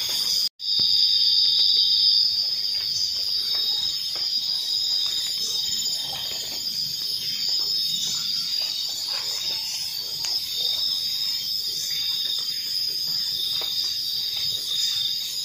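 Steady night chorus of crickets after rain: several high trilling tones held evenly, with faint rustling from walking through wet vegetation. The sound cuts out completely for a moment about half a second in.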